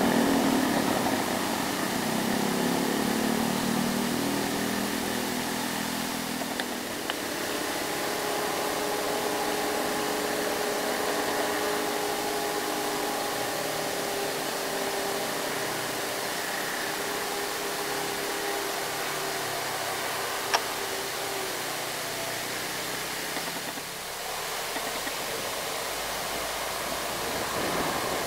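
Motorcycles passing with their engines fading away, then a loaded Isuzu Elf light truck's diesel engine running steadily as it takes the bend, over a constant hiss of background noise. A single sharp click about two-thirds of the way through.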